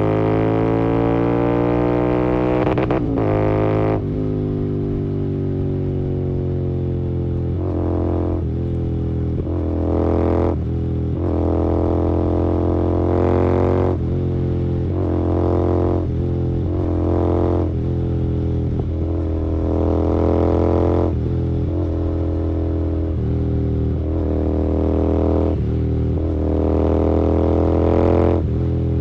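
Royal Enfield Continental GT 650's 648 cc parallel-twin engine through an aftermarket Gursewak exhaust, running while being ridden. The pitch climbs for the first three seconds and then drops. Short throttle bursts follow every two to three seconds over a steady deep drone.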